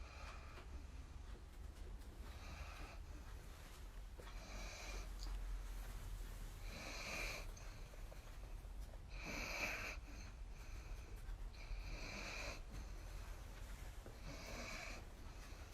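A dog snoring in its sleep, a regular snore about every two and a half seconds, seven in all.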